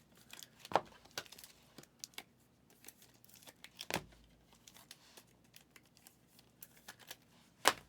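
Trading cards and plastic packaging being handled, with scattered crinkles and sharp clicks. The three loudest come about a second in, about four seconds in and near the end.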